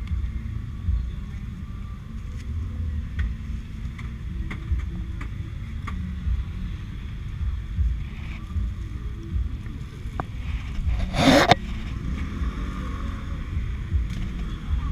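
Motorbike riding: wind buffeting the helmet- or bike-mounted action camera's microphone over a steady low engine and road rumble, with a short, loud burst of noise about eleven seconds in.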